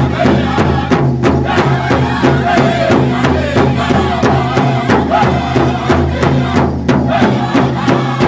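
Several voices singing together over a steady, evenly struck drumbeat.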